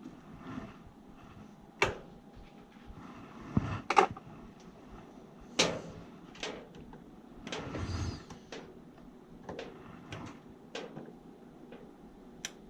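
Scattered sharp clicks and knocks, about ten over the span, from hands handling small hard objects, with a faint background between them.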